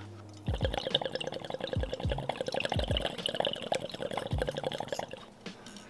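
Water bubbling rapidly in a glass dab rig as a dab is inhaled through it. The bubbling starts about half a second in, runs evenly for about five seconds and stops near the end.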